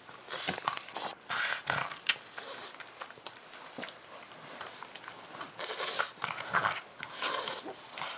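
A pug chewing and gnawing a chunk of squash, with wet mouth noises coming in repeated short, noisy bursts and a sharp click about two seconds in.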